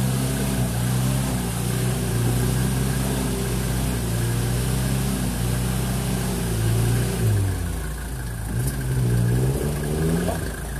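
UAZ off-roader's engine running steadily at low revs under load as it crawls over rough ground, then revving up and down several times from about seven seconds in.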